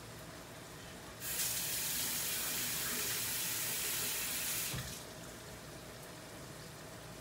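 Kitchen tap running, a steady rush of water that starts abruptly about a second in and cuts off after about three and a half seconds.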